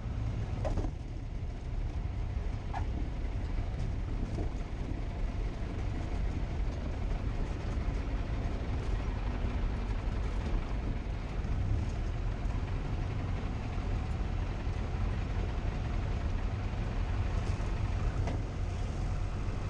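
Steady engine and wind noise inside the cockpit of a Piper J-3 Cub during its landing, without marked changes in level.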